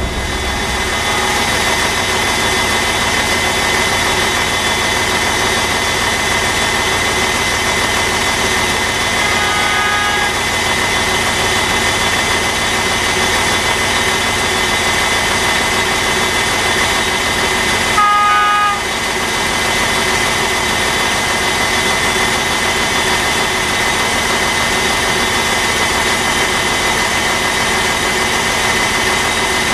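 Class 65 diesel-electric locomotive running steadily as it approaches, its engine and turbocharger giving a steady whine. It sounds its horn in short blasts, faintly about a second in, again around ten seconds in, and loudest just after eighteen seconds in.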